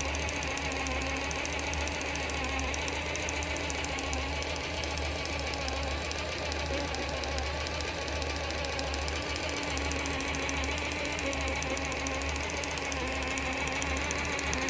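Axial SCX10 III RC crawler's drivetrain running steadily, the electric motor humming with a rapid, continuous clicking from the gears. The clicking was not there when the truck was new and has grown quite loud, a sign of wear or a fault developing in the drivetrain.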